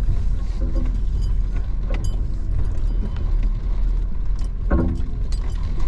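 Vehicle cab interior on a rough dirt logging road: steady low engine and road rumble, with loose items in the cab rattling and clinking.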